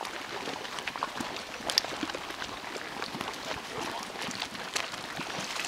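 Geothermal mud pool bubbling: thick mud plopping and popping irregularly, several small plops a second, with one louder plop a little under two seconds in.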